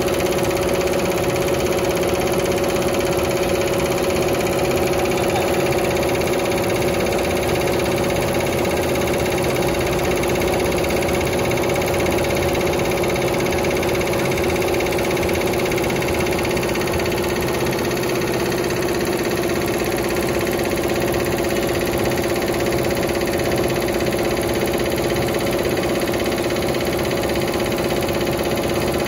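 Maatri Lejia multi-head computerized embroidery machine running, its needle heads stitching into a woven mat. The sound is an even mechanical running with a steady hum.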